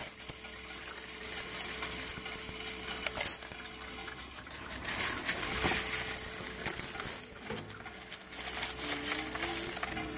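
Self-service bank coin-counting machine taking in a load of mixed loose change: coins clatter and clink continuously as they are pushed into the intake and counted, over a steady hum.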